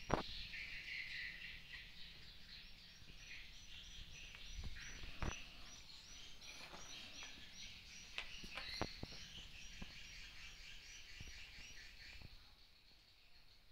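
Edible-nest swiftlets twittering in the dark of their nesting house, with a run of evenly repeated high chirps in the middle. A few sharp clicks and knocks from handling are mixed in.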